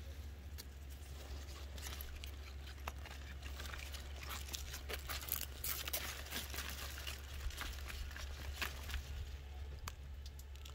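Mustard green plants being pulled up by the roots from a pot by a plastic-gloved hand: leaves, soil and glove rustling and crackling in a run of small snaps, busiest near the middle.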